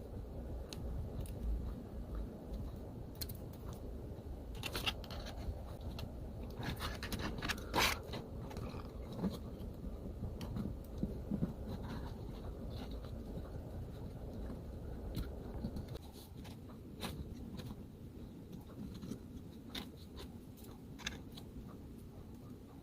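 Hands handling small plastic capsule-toy parts and their packaging: irregular clicks, scrapes and crinkles, the sharpest click about eight seconds in.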